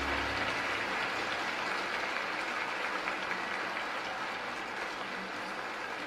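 Arena audience applauding at the end of a figure skating exhibition program, the music's last low notes stopping about half a second in.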